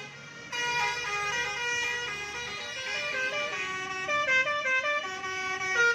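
Bus telolet horn of the 'basuri' type playing a melody of short stepped notes, with a brief gap right at the start before the tune picks up again.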